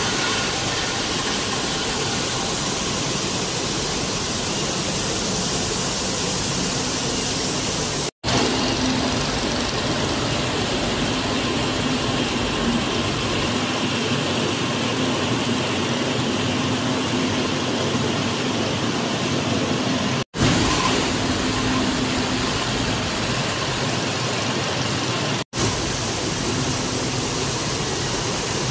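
Steady, loud machine din of a drink-can production line, with conveyors and packing machinery running and a faint steady hum at times. It cuts out for an instant three times.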